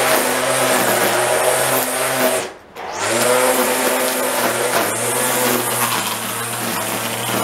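Cordless electric string trimmer running with a steady whir, its line cutting grass. About two and a half seconds in the motor cuts out for a moment, then spins back up and runs on.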